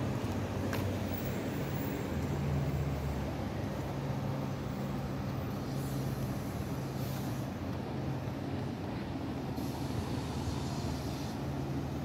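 An engine running steadily, giving a low, even hum.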